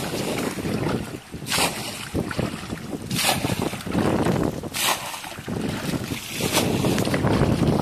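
Splashes of muddy pond water being bailed out with a plastic bucket, four splashes at a steady pace about a second and a half apart. A steady low rumble of wind on the microphone runs underneath.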